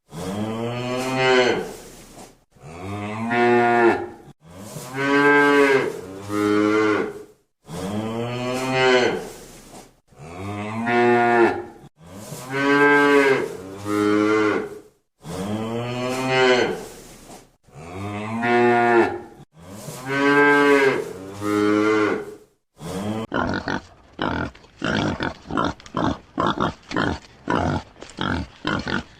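A cow mooing, one long call after another, about nine in all. Each call rises and falls in pitch, and some break into two parts. About 23 seconds in, it switches to a quick run of short, clipped animal calls.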